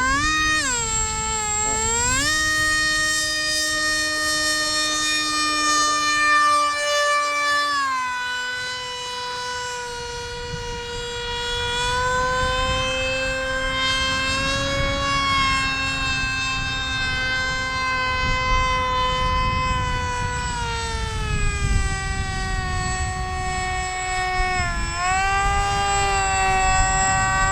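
Electric pusher propeller of a foam Su-27 RC jet in flight, a loud, high-pitched whine whose pitch falls and rises several times with throttle changes. It is very noisy for its size, though the propeller was found to be balanced.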